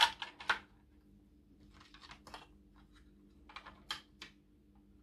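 Light clicks and taps of motor wires and plastic connectors being handled and plugged together on an RC truck chassis, coming in three short clusters of sharp clicks.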